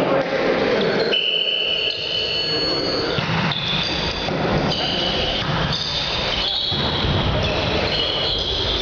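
Sneakers squeaking on a sports hall floor during volleyball play: a string of short, high squeaks at changing pitches, over the hall's low rumble.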